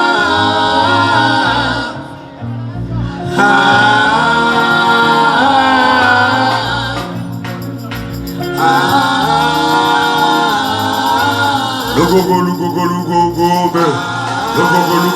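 Music with singing: long held sung notes over a steady backing, falling away briefly about two seconds in and again about seven seconds in.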